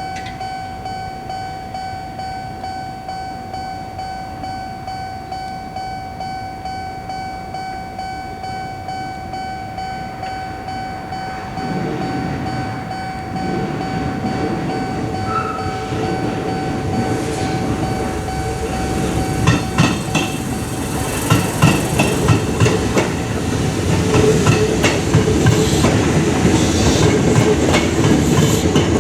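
Japanese level-crossing warning bell ringing in a steady pulsing rhythm as a train approaches. The train's rumble builds from a little before halfway, and in the last third it passes close by, its wheels clacking repeatedly over the rail joints.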